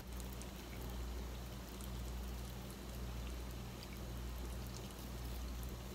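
Faint crackling and fizzing of hot caramelized sugar syrup as it is poured from a saucepan into a silicone candy mold, with scattered tiny ticks over a steady low hum.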